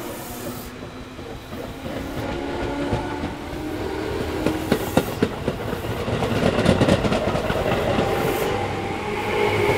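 Tobu 10030 series electric train, field-chopper controlled with DC motors, rolling past at low speed over its bolsterless bogies. The wheels knock over rail joints in a quick run of clacks around the middle, and the running noise grows louder toward the end.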